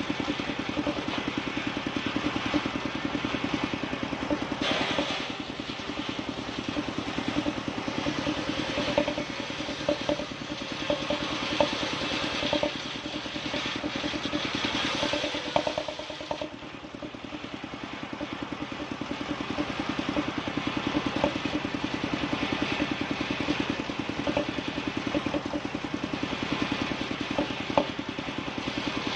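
Engine-driven wood saw running steadily, its engine pulsing fast, with a higher hiss swelling and fading several times. The level dips about halfway through, then builds back.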